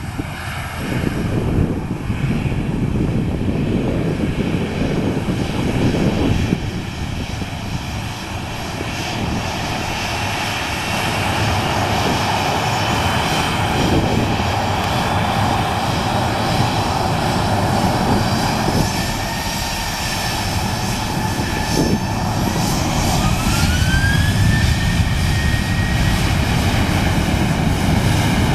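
Boeing 737-800 turbofan jet engines running, with a rising whine in the last third as the engines spool up and grow louder.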